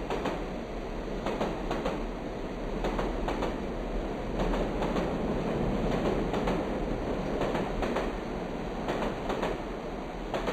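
Train running on rails: a steady rumble with repeated clicks, often in pairs, as the wheels pass over rail joints.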